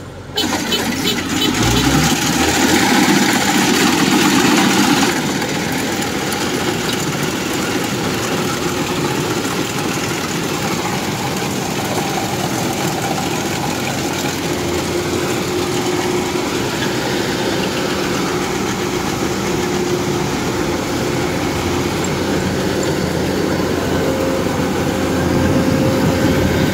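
Kubota DC-105X rice combine harvester running steadily as it cuts standing rice, a continuous engine and machinery drone, louder for the first five seconds.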